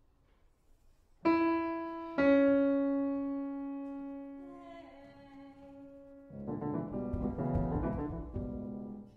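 Grand piano: a loud single note struck about a second in, then a second about a second later that rings on and slowly dies away. A few soft notes follow, then a loud, dense flurry of quick notes that stops just before the end.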